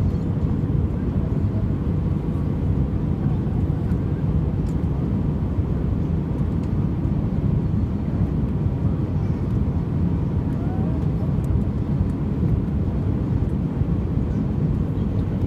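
Steady low rumble of jet airliner engines, holding at an even level without rising or fading.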